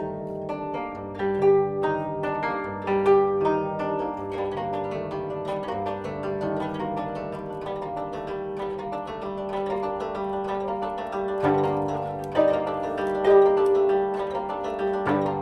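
Koto, the Japanese long zither, being plucked: a flowing melody of ringing plucked notes, several a second, over low sustained bass notes.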